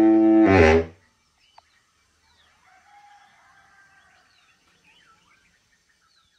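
Baritone saxophone holding a long final note that stops about a second in. After it come faint birdlike calls, rising and falling, and a single click.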